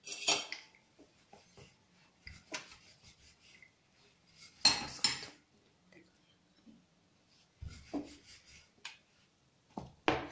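Metal kitchen utensils clinking and scraping against pots and pans: a handful of short, separate knocks, the loudest about five seconds in.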